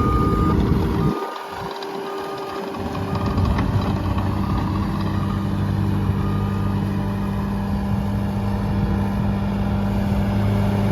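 Bobcat T750 compact track loader's Kubota-built diesel engine running, with the loader's backup alarm giving short beeps a few times as it reverses. From about three seconds in the engine runs on at a steady hum.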